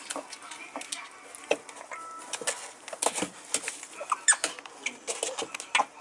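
Prairie dogs scuffling and wrestling in a plastic tub of sand, their claws scrabbling and scratching, with irregular clicks and knocks against the tub.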